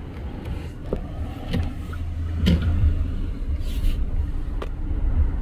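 Low steady rumble of a car heard from inside the cabin, growing a little louder partway through, with a few light clicks and knocks as the phone is handled.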